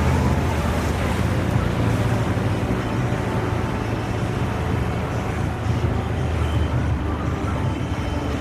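Sea Ray 280 bowrider under way: its engine drones steadily with a constant low hum, under the rush of water past the hull and wind buffeting the windshield-mounted microphone.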